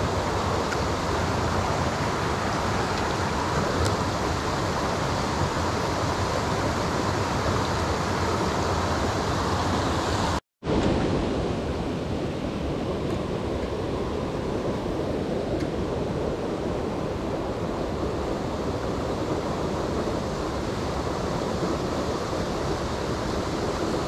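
Steady rush of creek water over rocks. It breaks off for an instant about ten and a half seconds in and comes back duller.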